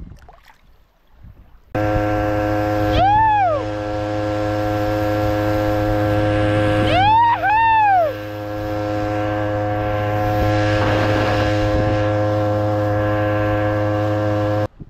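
Small two-stroke outboard motor (Toyama 3 hp, 60.2 cc) pushing a kayak, running at a steady speed with a low hum and an even engine tone. Twice it gives a brief rising-and-falling whine, a few seconds in and again about halfway. It starts abruptly about two seconds in and stops abruptly near the end.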